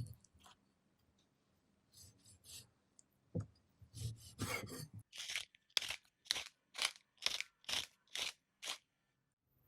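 Food being cut in a series of short, even strokes, about two a second, after a few scattered scraping sounds.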